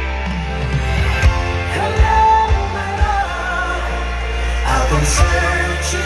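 Live pop concert music: the band playing held chords with a few low beats, and a singing voice over it in the second half.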